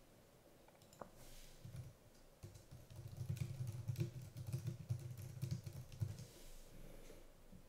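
Computer keyboard typing: a quick run of key clicks lasting about four seconds, starting about two seconds in.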